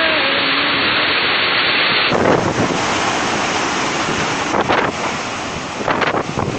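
Typhoon wind buffeting the microphone, a dense, steady rush of noise. About two seconds in the sound cuts to another storm recording where the wind comes in stronger gusts, three times.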